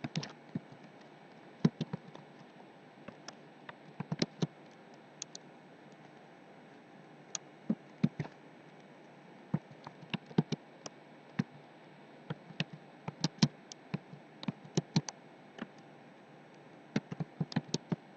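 Typing on a computer keyboard: irregular keystrokes in short runs with pauses between them, over a steady faint hiss.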